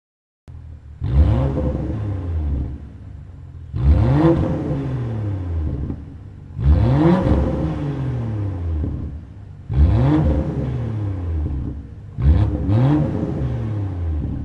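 2017 BMW X4 M40i's turbocharged straight-six being blipped five times while stationary, about every three seconds. Each rev climbs quickly and falls back slowly to idle through the exhaust.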